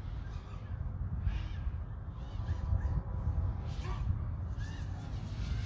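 Steady low wind rumble on the microphone, with short harsh bird calls repeating about once a second over it.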